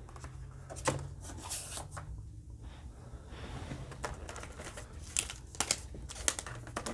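Trading cards and box packaging being handled: light rustling with scattered clicks and taps, one sharper tap about a second in and a cluster of them near the end.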